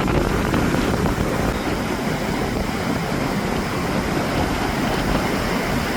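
Ocean surf breaking on a beach: a steady rushing noise, with wind buffeting the microphone.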